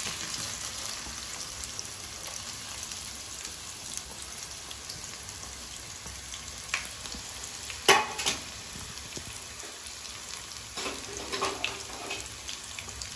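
Chopped red onion sizzling steadily as it fries in hot oil in a pan. A sharp knock about eight seconds in is the loudest sound, with a smaller click shortly before it.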